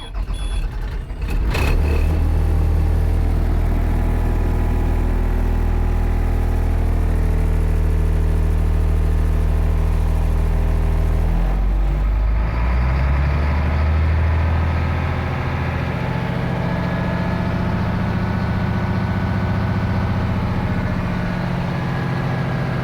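Caterpillar 3126 7.2-litre inline-six diesel in a school bus cranking briefly, catching and settling into a steady idle. The idle note changes about twelve seconds in.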